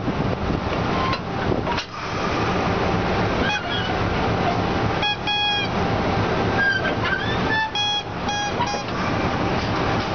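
Diesel locomotive engine running steadily beside the coupling to the coach, with a low hum. Several short high toots sound from about three and a half seconds in until near nine seconds.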